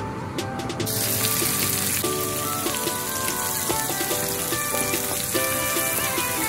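Chopped onions hitting hot oil in a stainless steel wok about a second in, then sizzling steadily as they fry, over background music.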